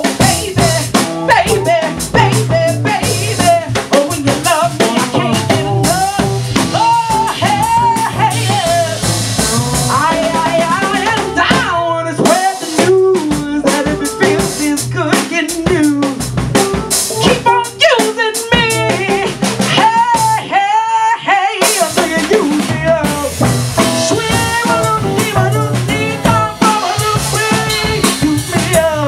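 Live band playing: a woman sings into a microphone over a drum kit, with snare and rimshot hits, and an electric bass. About 20 seconds in, the instruments stop for about a second while the voice carries on, then the band comes back in.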